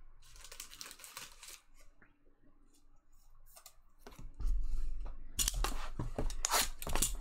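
Trading cards and pack wrappers being handled close to the microphone: rustling, sliding and light snaps. It is sparse at first, nearly stops for a couple of seconds, then gets busier and louder about four seconds in.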